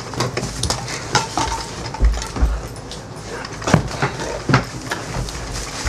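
Two people scuffling on a bed: an irregular run of sharp knocks and slaps, with a couple of heavier thumps about two seconds in and rustling bedding between them.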